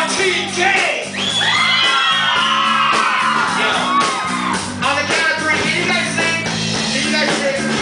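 Loud music with singing, and a crowd shouting and whooping over it.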